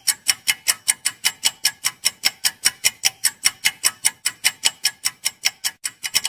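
Fast, steady ticking of a countdown-timer sound effect, about six sharp ticks a second, with a brief break near the end.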